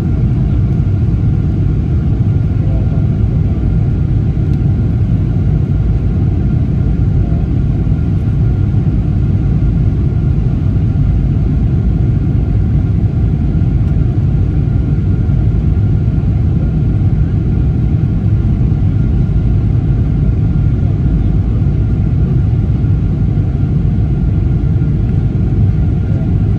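Steady low rumble inside the cabin of a Boeing 777-300ER airliner: its GE90 engines and airflow noise, with a faint steady high tone over it.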